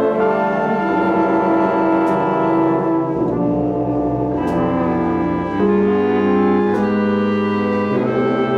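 A large jazz orchestra with a heavy brass section, trombones, trumpets and sousaphones over saxophones, playing long held chords that move to a new chord about every two and a half seconds.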